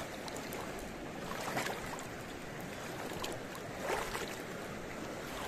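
Slow river water lapping at the bank, with wind noise on the microphone and two short louder rushes, about one and a half and four seconds in.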